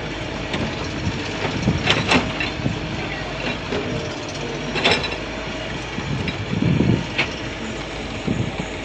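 A motor or engine running steadily, with a few sharp clacks and some dull knocks over it.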